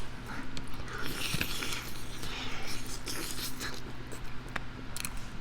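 Close-miked chewing and lip-smacking while eating hot wings: irregular wet clicks and crunchy smears over a faint steady hum.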